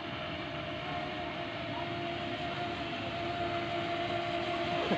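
Small electric RC boats running flat out across the water, their motors giving a steady whine that wavers slightly in pitch, over an even hiss.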